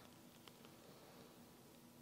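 Near silence: room tone, with a few faint ticks about half a second in.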